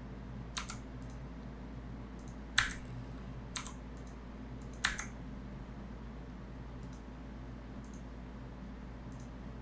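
Separate sharp clicks of computer input, about five in the first five seconds with the loudest near the middle of them, then a few faint ticks, over a steady low hum.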